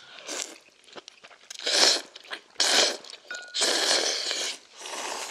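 Ramen noodles being slurped up from the bowl, five loud slurps about a second apart.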